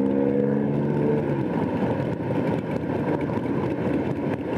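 Motorcycle engine running at a steady pace while riding, with wind noise over the microphone. A steady engine note in the first second or so fades into the rush of wind.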